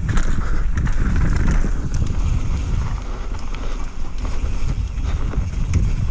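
Wind buffeting an action camera's microphone as a mountain bike descends a dirt trail at speed, with tyres rolling over loose dirt and scattered clicks and rattles from the bike.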